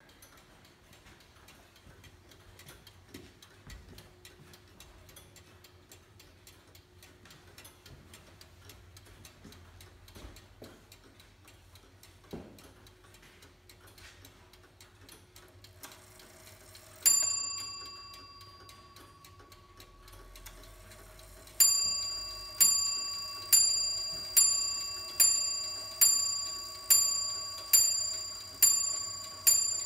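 Frisian stoelschippertje wall clock, circa 1800: its verge movement with short fixed pendulum ticking faintly and fast. Then its bell is struck once for the half hour, and a few seconds later it begins striking the hour, a ringing stroke a little under every second, about ten strokes, still going at the end.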